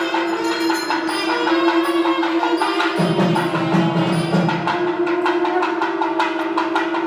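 South Indian temple procession music: a reed note held steady the whole way through over dense drumming, with quick sharp metallic strikes in the second half, in the manner of nadaswaram and thavil.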